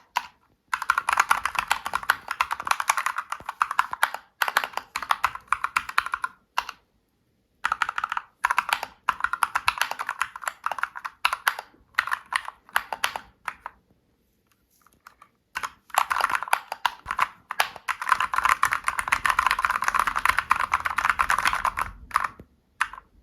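Fast typing on a Kemove K68 mechanical keyboard fitted with brown switches and PBT XDA-profile keycaps: rapid clacking keystrokes in three long runs, with short silent pauses between them.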